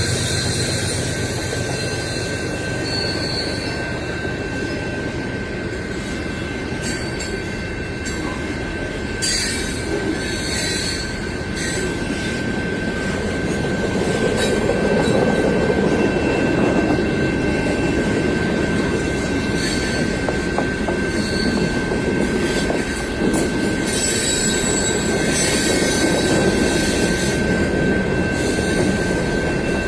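Long freight train's cars rolling past, a steady rumble of wheels on rail with a thin, steady wheel squeal over it.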